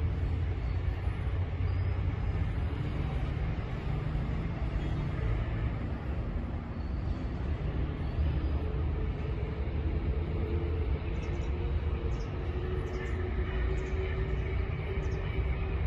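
Outdoor ambience dominated by a steady low rumble, like traffic, with a few faint high chirps in the second half.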